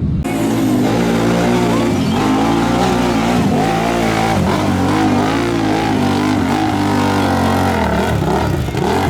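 A big engine in a mud-bogging vehicle revving hard, its pitch rising and falling over and over as the throttle works. The sound begins abruptly just after the start.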